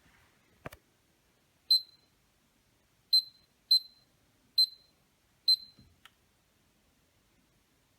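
Five short, high electronic beeps from a Miele W1 washing machine's control panel, unevenly spaced, after a single click.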